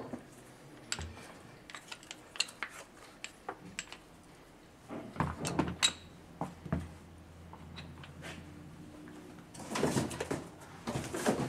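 Light clicks and clinks of a screwdriver and small metal parts being handled while a Makita SDS-Max demolition hammer's barrel assembly is taken apart. The clicks are scattered, come thickest about halfway through, and there is a short scraping rustle about ten seconds in.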